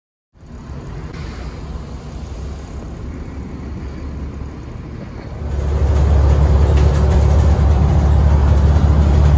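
Single-decker shuttle bus idling at the stop, a steady low hum. About five and a half seconds in it gives way to the much louder low drone of the bus's diesel engine and road noise, heard from inside the moving bus.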